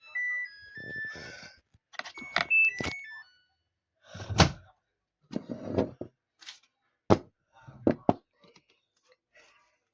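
Samsung washing machine's electronic tune ending in a few high beeps, then a series of clunks and clicks with one loud thunk about four and a half seconds in, like the door being handled.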